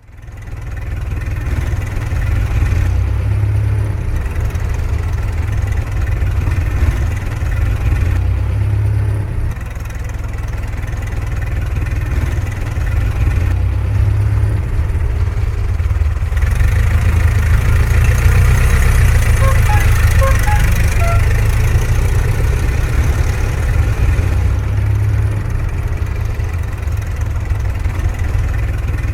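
Old car engine idling with a steady, deep pulsing rumble; it gets a little busier and louder about halfway through.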